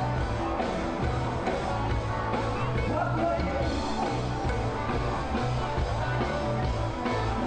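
Rock-and-roll music with a steady bass line.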